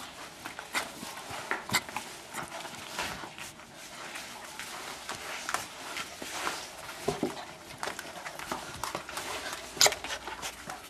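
A dog moving and playing right at the microphone on a parquet floor: irregular scuffs, clicks and knocks, with a sharper knock near the end.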